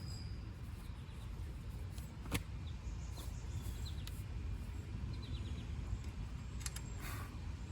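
Outdoor ambience: a steady low rumble with faint bird chirps, and a single sharp click about two and a half seconds in.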